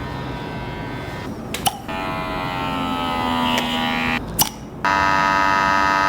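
A steady electric buzz with a fixed pitch, in three stretches: faint at first, then wavering slightly in pitch, then loudest and steady for the last second or so. A few short sharp clicks fall between the stretches.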